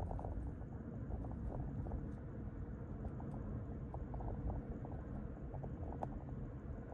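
Steady low road and engine rumble of a car driving, heard inside the cabin, with small intermittent clicks and rattles and one sharper tick near the end.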